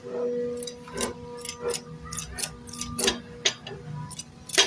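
Irregular sharp metallic clicks and taps, roughly two a second, like tools and metal parts being handled, over a steady low hum.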